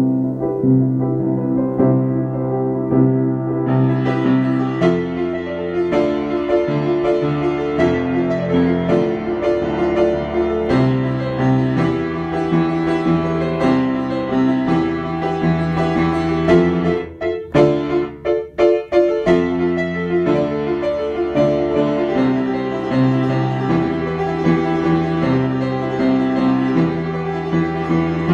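Instrumental keyboard music of slow, sustained chords that grow brighter about four seconds in. About seventeen seconds in, the music stutters, cutting in and out rapidly for a couple of seconds, then carries on.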